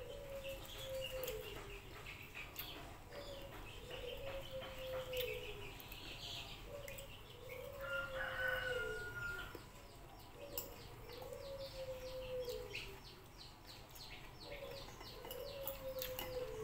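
A bird repeats a low, falling call in pairs every few seconds. A higher, held call comes about eight seconds in, and faint quick chirps from other birds are heard later. One sharp click sounds about ten seconds in.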